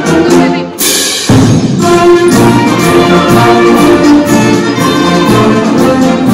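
Symphonic concert band of woodwinds, brass and percussion playing; about a second in the full band comes in loud with a bright splash of high sound, and held brass chords carry the rest.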